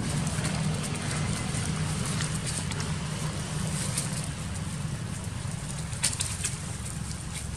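Dry leaves crackling and rustling as young macaques tussle on the leaf-littered ground, with a sharper crackle about six seconds in, over a steady low rumble.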